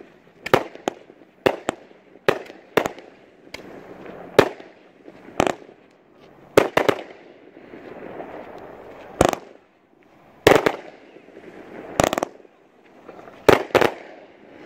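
A 30-shot, 500-gram consumer fireworks cake firing: a string of sharp bangs from shots lifting and breaking, unevenly spaced, about fifteen in all, with crackling stars sizzling between them.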